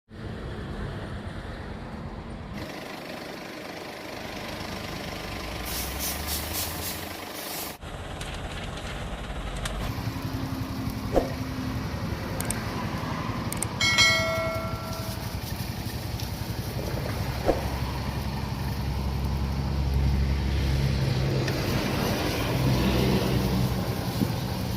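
Street ambience with motor traffic running past, a steady low rumble, broken by sudden changes a few seconds in and near eight seconds. A short pitched beep about fourteen seconds in, with a few scattered clicks.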